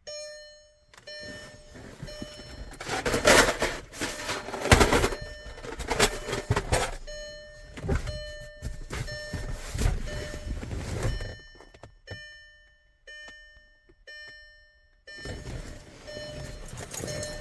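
Irregular clunking and rubbing from working on a newly fitted Caterpillar 1R-0750 diesel fuel filter while priming it with fuel. Through it a car's electronic warning chime beeps over and over in short, evenly repeated tones.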